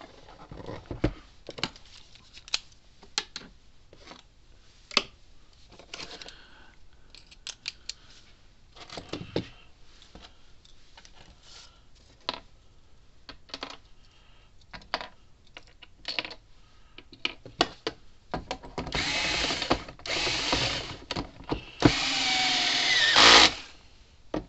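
Light clicks and knocks as the fence charger's cover is handled and screws are set in place. Then a cordless electric screwdriver runs in three short bursts in the last few seconds, driving the screws that close the case. Its pitch sinks during the last burst.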